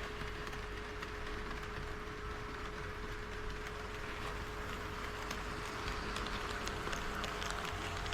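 HO-scale model train running on KATO Unitrack: a steady hum with light clicks of wheels over the rail joints, coming more often near the end.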